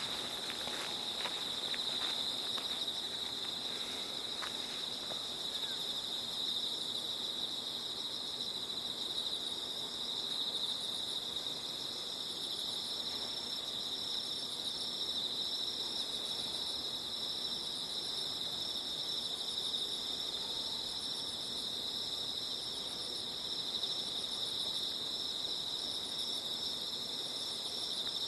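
Autumn night insects calling together: a continuous high trill, with another insect above it chirping in short pulsed bursts about once a second. A few footsteps sound in the first few seconds.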